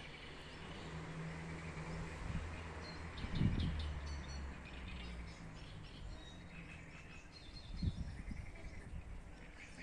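Outdoor ambience: small birds chirping faintly over a steady low hum, with two dull low thumps, about three and a half and eight seconds in.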